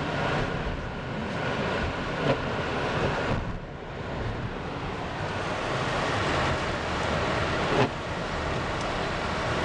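Steady road noise inside a moving car on a snowy road, engine and tyres running, with a brief knock about two seconds in and another near the end.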